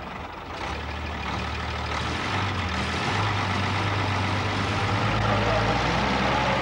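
Heavy truck engine pulling hard in reverse, getting louder and stepping up in pitch a couple of seconds in, as the rear wheels spin in soft sand: the truck is bogged and trying to back out.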